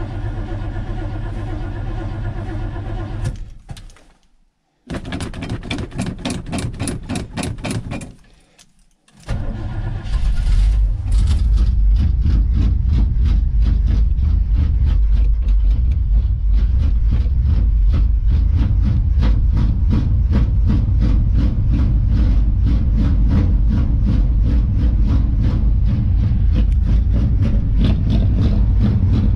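1978 Suburban engine running steadily, then cut off; the starter cranks it in even strokes for about three seconds, and after a second break the engine catches about nine seconds in and settles into a louder, steady fast idle on a cold winter start.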